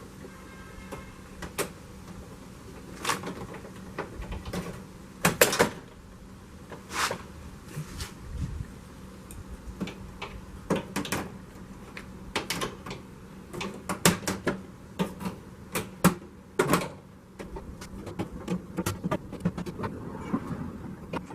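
Small white plastic push clips in a Jeep Wrangler JL fender being squeezed with needle-nose pliers and popped out, giving irregular clicks and knocks of plastic and metal tools.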